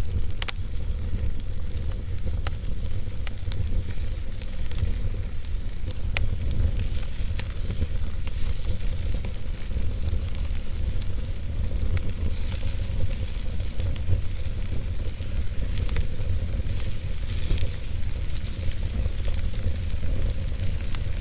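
Wood fire in a fireplace crackling, with scattered sharp pops and a steady hiss over a low, even rumble.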